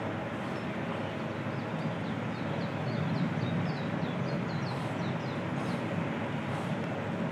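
Steady outdoor background noise with a small bird twittering in quick, high, short chirps over the first five seconds or so.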